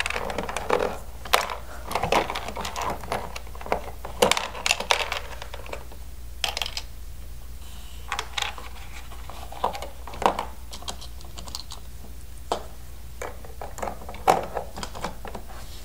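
Plastic pieces of an Octonauts Launch and Explore Octo Lab toy playset being handled and packed away: irregular clicks, taps and light rattles of hard plastic knocking together.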